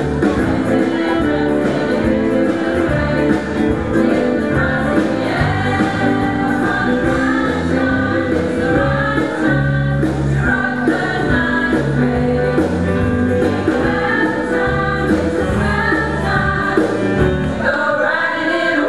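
Mostly female choir singing a Christmas song together over an instrumental backing with a bass line.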